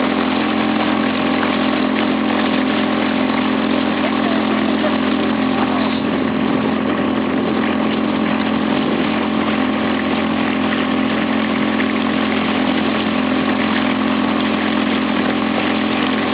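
Vehicle engine running steadily at an even pitch, with a constant hum and a noisy drone that do not change.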